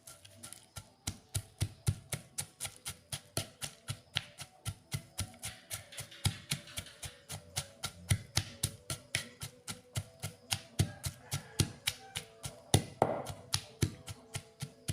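Pestle pounding long beans and peanuts in a mortar, a steady run of knocks at about four strokes a second, breaking the beans a little.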